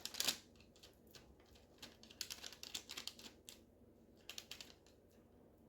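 Faint, irregular soft taps and rustles of hands pressing ground-chicken patties flat on parchment paper, in small clusters.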